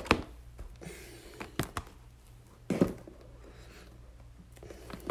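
Light handling sounds of trading cards and card boxes on a table: a few scattered taps and clicks, one fuller knock about three seconds in, over a faint low hum.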